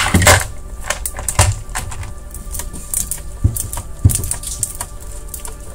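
Screwdriver backing out the two rear screws of an Xbox console: a run of light clicks and ticks, with a few dull knocks.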